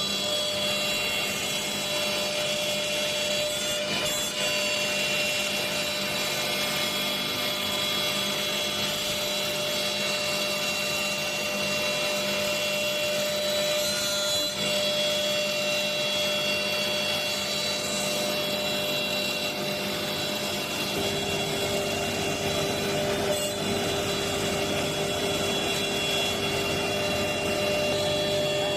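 Four-head CNC router cutting wood: the spindles run with a steady whine of several high tones over the noise of the cut. A lower steady tone joins about two-thirds of the way through.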